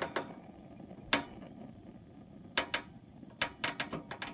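Sharp clicks of the Mr. Heater Portable Buddy propane heater's push-button piezo self-igniter being pressed to light the pilot: one click about a second in, then a quicker run of about seven clicks near the end.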